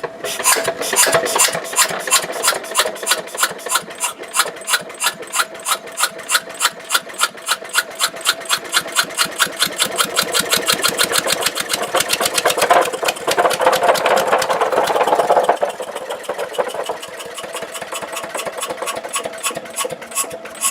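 Lister D single-cylinder stationary engine running under its own power, with a regular firing beat that quickens as the engine gets going faster and faster. The governor is out of adjustment, so the engine races. The sound gets louder, then drops back about three-quarters of the way through while the quicker beat carries on.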